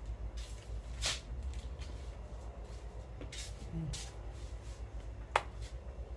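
Hands handling small objects: a few brief rustles and one sharp click about five seconds in, over a low steady hum.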